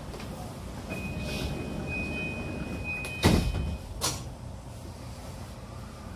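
The E235 series 1000 train's sliding passenger doors closing: a steady high electronic warning tone sounds for about three seconds, then the doors shut with a loud thud just after three seconds in, followed by a second, smaller knock about a second later, over the train's steady rumble.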